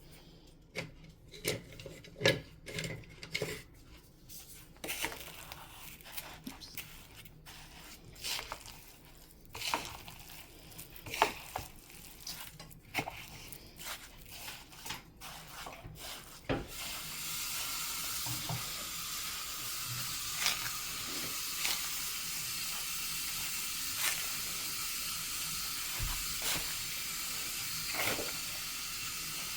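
Ground lamb being mixed with breadcrumbs and spices in a bowl: scattered soft knocks and clinks of stirring. About halfway through, a steady hiss starts and keeps on.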